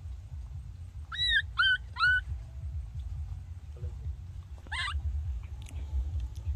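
Baby monkey calling: three short, high cries in quick succession, each rising then dipping, and a few seconds later one longer cry that climbs in pitch. A steady low rumble runs underneath.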